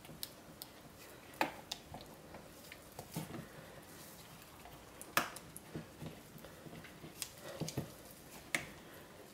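Silicone spatula stirring raw soap batter with water-soaked coffee grounds in a plastic jug: faint wet squishing with light, irregular knocks of the spatula against the jug.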